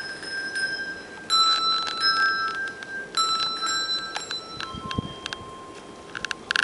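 Handbell choir ringing a slow piece: chords of bells struck about every one and a half seconds, each left ringing and overlapping the next, with a few light clicks near the end.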